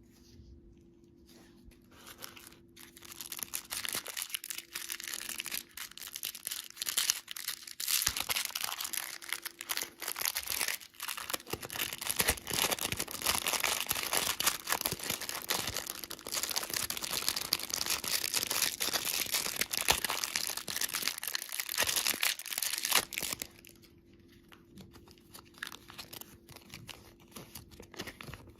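Candy packaging being crinkled and torn open. A dense crackling rustle starts about two seconds in and drops to scattered faint rustles near the end.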